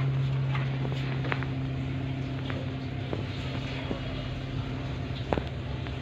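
Scattered small clicks and crunches of an Alexandrine parakeet's beak nibbling a piece of biscuit, over a steady low motor hum.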